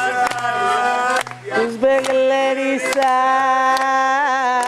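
Piano accordion playing a Greek popular song, with a hand-held frame drum beating time about once a second and voices singing along, a sung line near the end.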